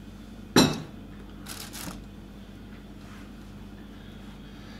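A plastic tub of honey set down on the kitchen counter with one sharp knock, followed by a short rustle.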